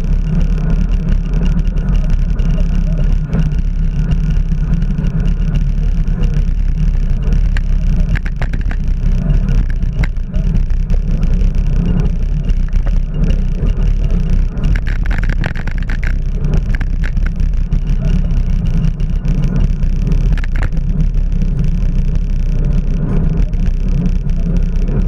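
Steady low rumble of wind on the microphone while riding a bicycle, with a few short higher-pitched sounds around the middle.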